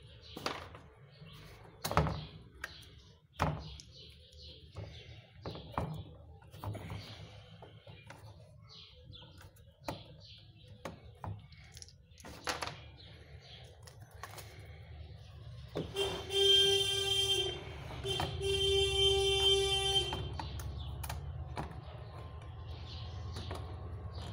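Scattered knocks and clicks as the amplifier board is handled and taken apart. About two-thirds of the way through, a passing tortilla vendor's vehicle sounds a loud, steady, single-pitched tone twice, the first about a second and a half long and the second about two seconds, over a low rumble: the vendor's racket.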